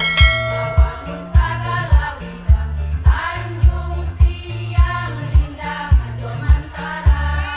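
A women's choir singing in several parts over an accompaniment with a steady low beat, about two beats a second.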